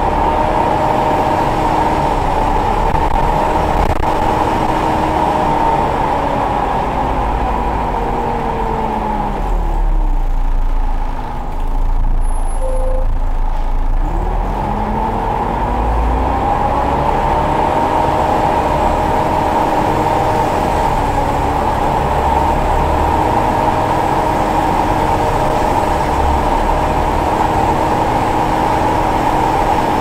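Volvo B7TL double-decker bus heard from inside the saloon, its 7-litre six-cylinder engine and driveline running with a steady high whine, the 'hoover' sound. About eight seconds in, the tones fall as the bus slows to a brief stop. Around fourteen seconds in they rise again as it pulls away.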